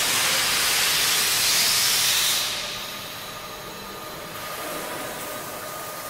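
Loud hiss from a cable tray roll forming line's punching station, lasting about two and a half seconds, then falling back to a quieter steady hiss of the running line.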